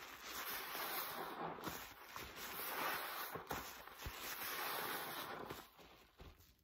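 Gloved hands squeezing a paste-soaked yellow sponge in sudsy rinse water: wet squelching and sputtering of foam and water through the sponge, in several long squeezes that die down near the end.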